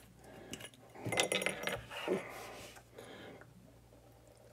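Glass clinking as a liquor bottle is tipped against a small glass to pour a shot, with a cluster of sharp clinks about a second in and fainter handling noises after.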